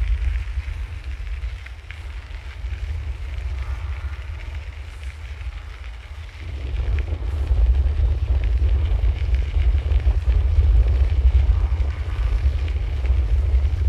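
Wind buffeting the microphone of a recorder carried on a moving bicycle: a heavy, uneven low rumble that grows louder about six seconds in.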